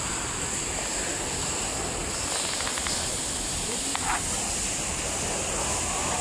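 Steady hissing background noise in a cattle shed, with a few faint clicks and a brief sound about four seconds in.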